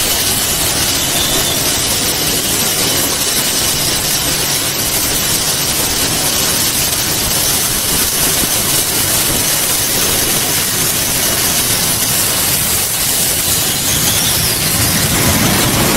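Harrier jump jet's Pegasus vectored-thrust turbofan running at high power on the deck for a vertical takeoff: a loud, steady jet roar with a strong hiss, growing louder near the end.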